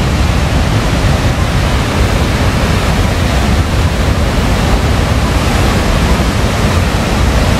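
Loud, steady rush of Nairn Falls' fast white water pouring through the rock gorge, an even unbroken noise.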